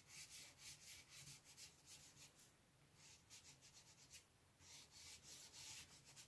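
Soft chalk pastel stick rubbing across paper in quick, faint back-and-forth strokes, with a couple of brief pauses.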